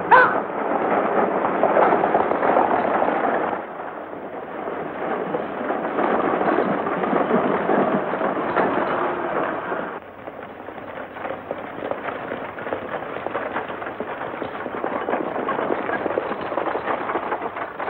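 A team of horses galloping, hooves pounding, as a horse-drawn stagecoach rattles along at speed.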